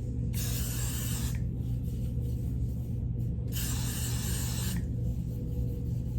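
Aerosol hair spray hissing in two bursts of about a second each, a couple of seconds apart, sprayed over a wig cap to glue it down to the head.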